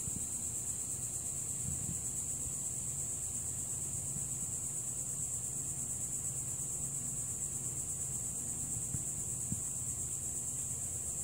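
Steady, high-pitched chorus of insects such as crickets, an unbroken drone, over a faint low background hum.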